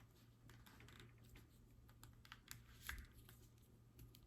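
Faint, irregular small clicks and rubbing from a key fob and its protective sleeve being handled, over a low steady hum.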